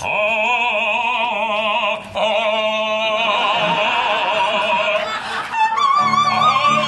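Operatic baritone singing long held notes with a wide vibrato, broken briefly about two seconds in. About six seconds in, a soprano takes over on a high held note over piano accompaniment.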